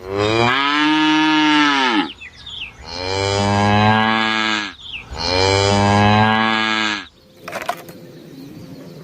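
A cow mooing three times, each moo a long drawn-out call of about two seconds that rises and then falls in pitch.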